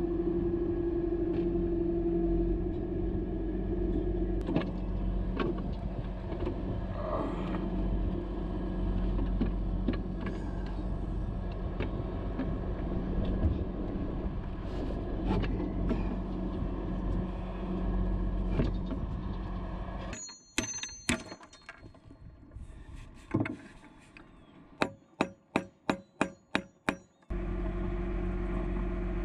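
Bucket truck engine running steadily, with scattered knocks and clicks from work in the bucket. About twenty seconds in the engine hum drops away, and near the end a quick run of about eight sharp, ringing metal strikes sounds before the hum returns.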